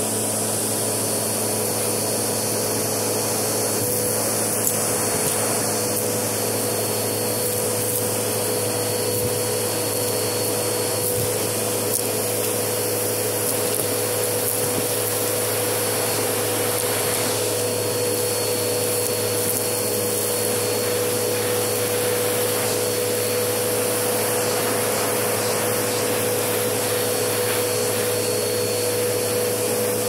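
Vacuum cleaner running steadily through a hose with a stiff-bristled brush attachment pushed over carpet: a constant motor drone with a steady whine. A few small crackles come through as grit and debris are sucked up.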